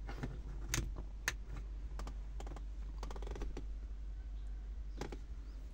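Irregular sharp clicks and light taps of an LED festoon bulb and fingers working it into the metal contact clips of a car's plastic interior dome light housing, with a small cluster of clicks about three seconds in.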